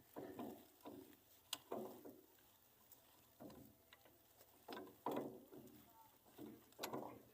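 Intermittent faint clicks and knocks of hand tools on metal: spanners working the nuts of a loader's wheel hub, about eight short strikes with sharper clicks twice.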